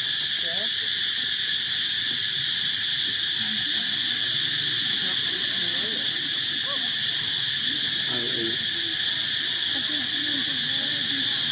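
A steady, high-pitched chorus of insects droning without a break, with faint low wavering calls in the background about two thirds of the way through.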